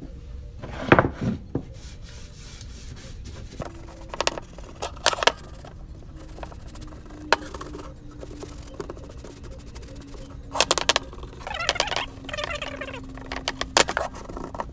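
Scattered knocks, taps and scrapes of hand painting: a paintbrush dipped into and tapped against a metal paint can and brushed over an MDF frame, and the wooden frame knocking on the bench as it is picked up and turned.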